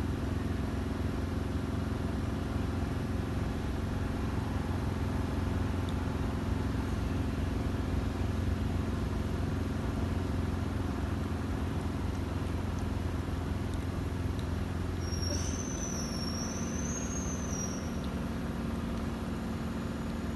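A steady low engine hum. A high, wavering whistle lasts about three seconds near the end.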